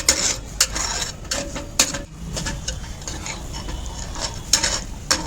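Metal ladle scraping and knocking against a pan while stirring a thick, sticky herbal paste of ghee and palm sugar, with several sharp clicks at irregular intervals.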